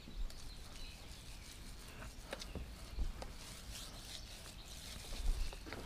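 Paint roller loaded with latex deck stain being rolled to work off the excess paint: a faint soft rubbing with a few light clicks.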